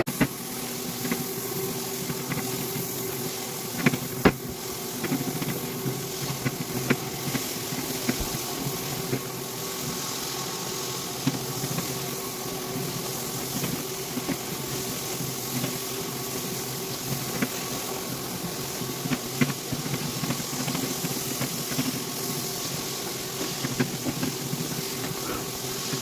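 Electric floor machine running steadily: a motor hum with a hiss over it, and scattered light clicks and knocks.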